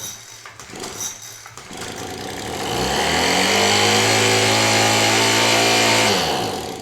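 Craftsman two-stroke leaf blower engine running, throttled up about three seconds in, held steady at high revs, then let back down near the end.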